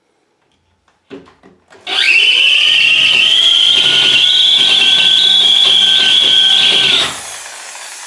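Electric drill with a 5 mm bit drilling out the rivet in a brass padlock: a few small knocks as the bit is set in the hole, then the motor spins up about two seconds in and runs with a steady high whine while cutting. About seven seconds in the trigger is released and the motor winds down.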